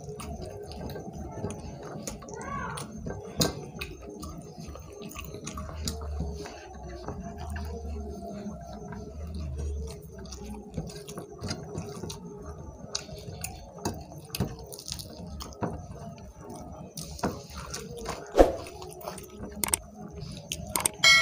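Close-up eating sounds: fingers mixing rice and curry on paper plates, chewing and wet mouth sounds, with many small scattered clicks and one sharper knock near the end.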